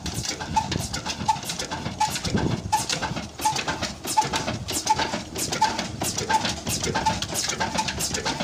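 Old Ruston & Hornsby stationary diesel engine running steadily: a regular knocking beat, with a short note recurring about one and a half times a second.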